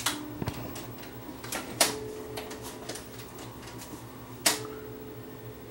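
Sony SLV701 VHS VCR's tape mechanism going into play: a few sharp mechanical clicks, the loudest about two seconds in and again about four and a half seconds in, over a faint steady motor hum.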